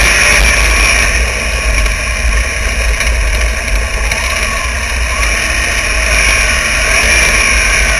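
Wingless sprint car's V8 engine running at racing speed, heard from an onboard camera on the car, with a heavy low rumble under it. The engine pitch rises and falls slightly as the car goes through the turn.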